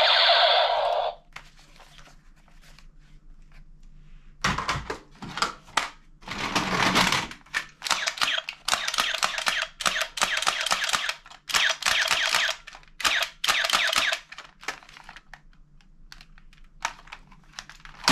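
Toy machine pistols firing their rapid rattling sound effects in repeated bursts of about half a second to a second and a half each. A short pitched tone from a toy gun cuts off about a second in.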